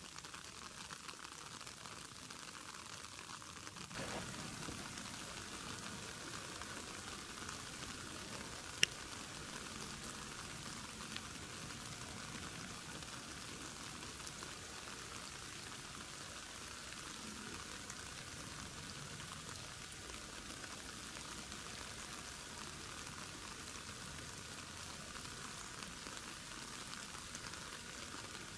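Steady faint outdoor hiss picked up by the camera's microphone, a little louder from about four seconds in, with a single sharp click about nine seconds in and a smaller one a couple of seconds later.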